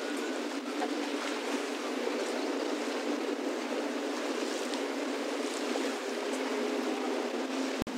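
Lake water lapping and washing against a rocky shoreline, a steady rushing noise that cuts out briefly near the end.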